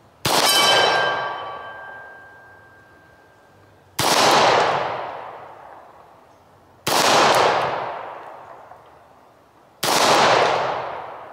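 Four pistol shots from a 9mm Beretta 92FS, spaced about three seconds apart, each dying away over a second or two. The first shot is followed by the ringing of a steel target that was hit.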